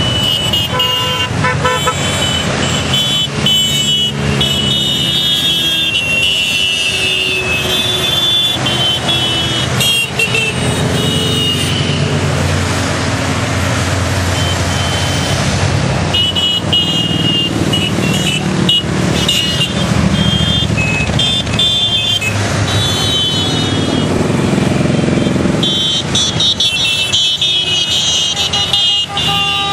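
A long stream of motorcycles riding past, their engines running in a steady rumble, with horns honking again and again in several spells over it.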